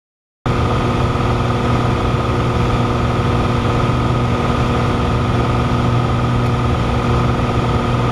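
Light single-engine airplane's engine and propeller droning steadily in cruise flight, heard from inside the cockpit. The sound cuts in abruptly about half a second in after silence.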